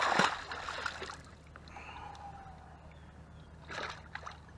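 A bass dropped back into the water, landing with a loud splash that fades over about a second. A second, quieter splash comes near the end.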